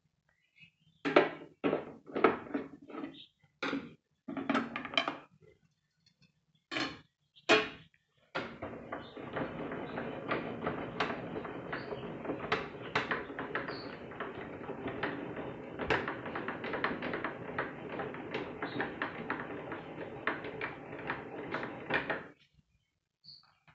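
Several separate knocks and clacks from handling a Black and Decker BES 720 table saw, then about fourteen seconds of steady rattling and clicking as the blade-height mechanism is cranked and the saw blade is raised.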